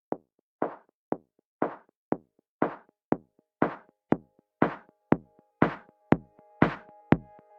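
Electronic dance music intro: drum-machine kick drums alternating with a clap or snare, about two hits a second, building louder, with sustained synth chords coming in about six seconds in.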